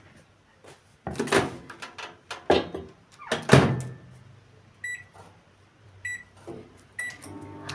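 A dish of chopped garlic being put into a microwave oven with a few sharp knocks and clatters, then three short keypad beeps as the oven is set. Near the end the microwave starts running with a steady hum.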